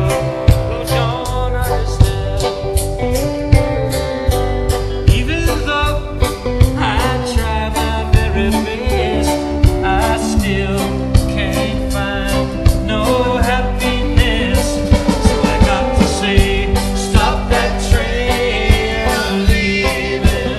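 A live band playing reggae with a steady beat: drum kit, bass and electric guitars, with a lead line that bends in pitch over the rhythm.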